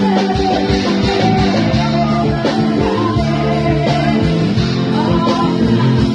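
Music: a song with guitar and a singing voice.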